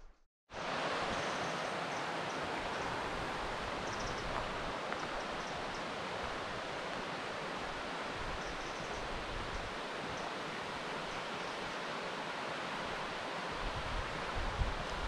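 Rushing river water, a steady dense hiss that cuts in just after the start, with a few faint high chirps in the first seconds and some low rumbles near the end.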